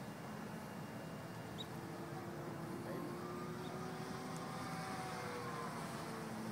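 Distant electric RC biplane in flight: the Tacon 46 brushless motor and propeller give a faint whine that slides slowly up and down in pitch, over a steady background hiss.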